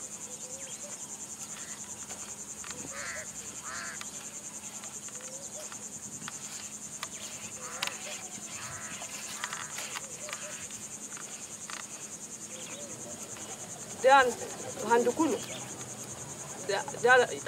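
Insects chirring in a steady, high-pitched buzz with a fast pulse. A woman's voice speaks in short phrases near the end.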